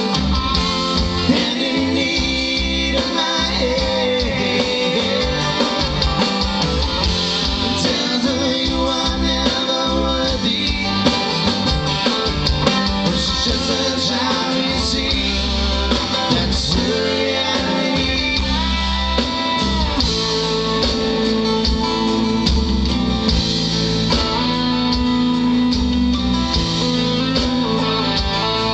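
A live rock band playing, with electric guitar, acoustic guitar, bass guitar and drum kit.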